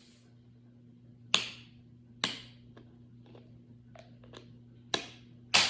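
Four sharp plastic clicks or taps, irregularly spaced, each with a brief hissing tail, from handling the slime activator bottle as it is shaken out.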